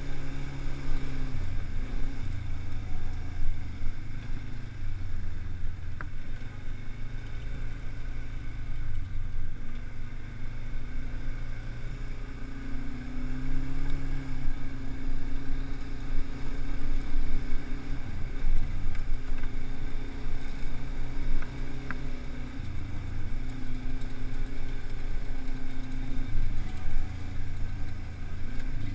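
Quad bike (ATV) engine running close up on a dirt trail, its revs stepping up and down with the throttle, with a couple of short clicks.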